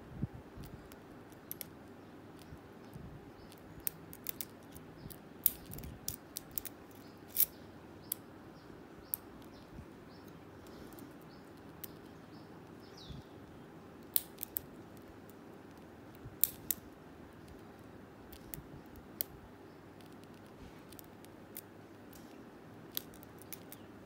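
Irregular small metallic clicks and ticks from a lock pick and tension wrench working the pins inside a Blossom 50mm padlock. They come in bunches with quieter gaps between, over a low steady hum.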